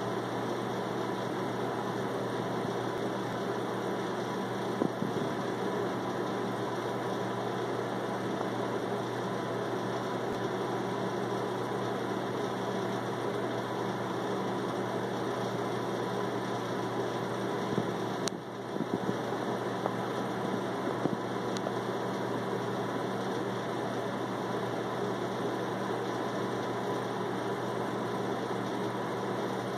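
Steady machine hum with a faint constant tone running under it. It briefly dips, with a few small knocks, about eighteen to twenty-one seconds in.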